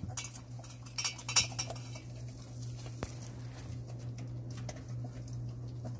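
Jindo puppies scrabbling in their wooden box: light clicks, taps and scratches of claws on the boards, clustered in the first couple of seconds with a sharp tap about three seconds in, over a steady low hum.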